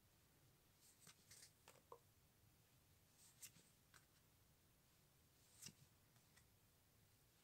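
Near silence with a few faint, short rustles and clicks of trading cards being handled and swapped in the hand.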